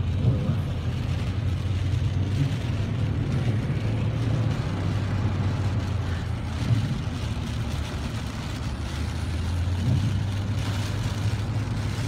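Car engine running steadily at low speed, heard from inside the cabin as a low hum, with an even hiss of tyres on the wet road.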